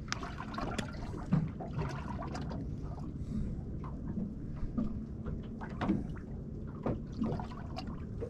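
Water lapping and trickling against the hull of a small boat, with scattered light clicks and knocks.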